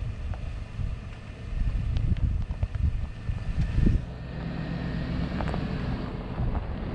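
Wind buffeting the microphone. The Cadillac Escalade's V8 engine runs as the SUV drives slowly past over snow, and its steady low hum comes up clearly from about four seconds in.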